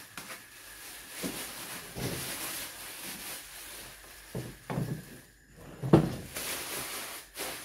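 Clear plastic bag crinkling and rustling as it is pulled off a welder and bunched up, with a few knocks of handling, the loudest one about six seconds in.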